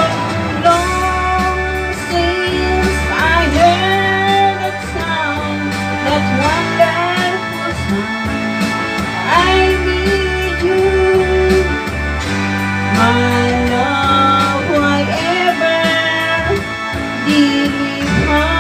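Music: an instrumental passage of a slow love song, a lead instrument playing sustained notes with slides over a steady bass and accompaniment.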